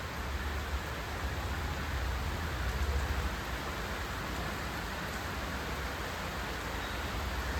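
Steady rain falling, an even hiss of many drops, over a low steady rumble.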